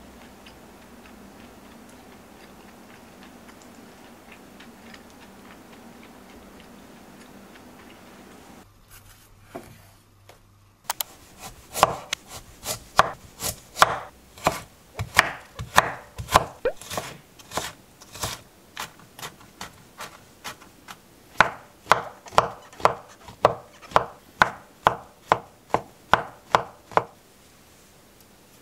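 Kitchen knife chopping a carrot on a wooden cutting board: after about ten seconds of faint room tone, a run of sharp knife strokes begins, about two a second, with a short pause midway.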